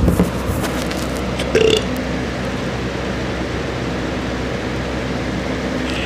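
A person's short burp about a second and a half in, over a steady low hum in the room.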